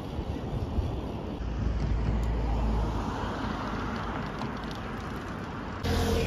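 Road traffic on a city bridge: a car passes, its tyre noise swelling and fading in the middle, over a steady traffic background. Near the end the sound jumps louder with a steady low hum.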